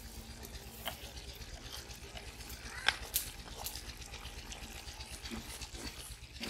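Wooden spatula scraping a thick onion paste out of a clay bowl into a steel karahi, with a few sharp knocks of the spatula against bowl and pot, the loudest about three seconds in, over a low steady hum.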